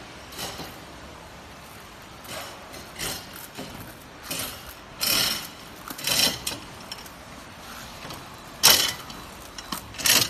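Hand lever hoist ratcheting in short, irregular strokes as it tightens a steel wire rope around the furnace's wooden lining form. The loudest stroke comes near the end.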